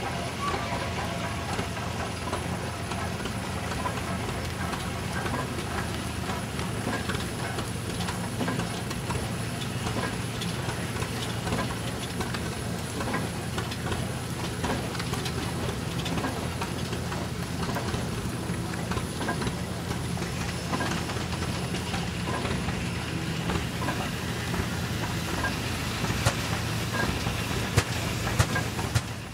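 Minneapolis single-cylinder steam traction engine running steadily, with a hiss of steam over the engine's mechanical clatter. A few sharper knocks come near the end.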